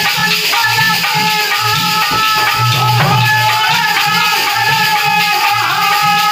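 Folk devotional music played on a dholak, which beats a steady rhythm, and a brass thali plate struck as percussion, which rings with sustained metallic tones over it.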